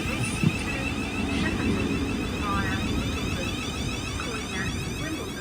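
Train running with a steady low rumble and a steady high whine above it.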